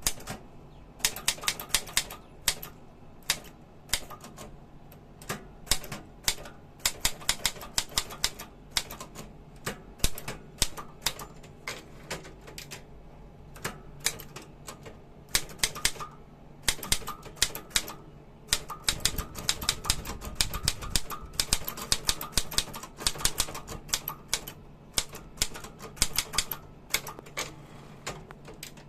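Godrej Prima manual typewriter being typed on: keys striking the platen in quick, irregular runs of sharp clacks with short pauses between.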